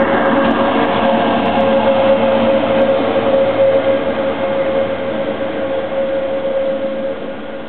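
Electric Dolderbahn rack-railway railcar running past through the passing loop, with a steady whine over the rolling noise. It grows quieter over the last few seconds as the car moves off.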